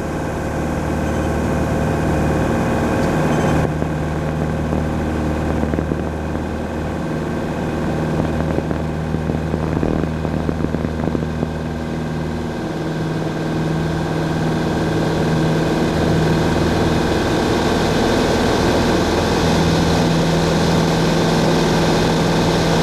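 Grumman AA-5A Cheetah's four-cylinder Lycoming engine and propeller at takeoff power, heard from inside the cabin: a steady engine drone. A rushing hiss of air grows louder through the second half as the plane gathers speed down the runway.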